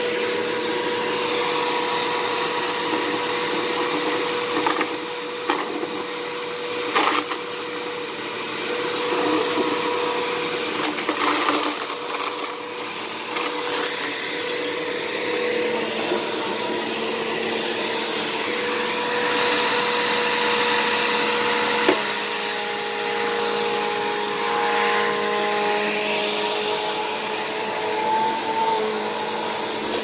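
Sanitaire upright vacuum cleaner running steadily on carpet, a motor whine over the rush of suction. A few sharp knocks come as it is pushed about, and about two-thirds through a click after which the motor's tone shifts.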